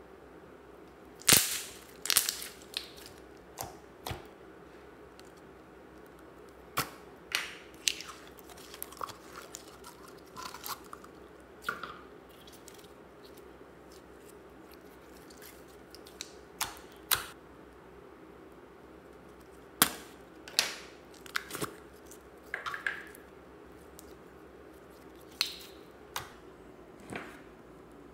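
Slime being squeezed and stretched by hand in a plastic tub, giving irregular sharp wet clicks and pops, in clusters with quiet gaps between.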